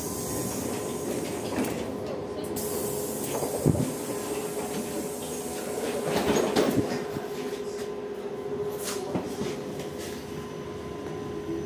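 Cabin noise of a LiAZ-6274 battery-electric bus on the move: the steady whine of its electric drive over road and tyre noise and body rattles, with a sharp knock about three and a half seconds in.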